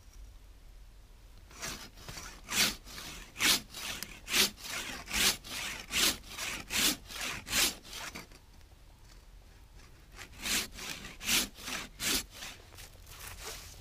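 Silky BigBoy folding pruning saw cutting through a fallen birch log, rasping in strokes a bit under a second apart, with the cutting pull strokes the loudest. It stops for about two seconds midway, then a few more strokes follow.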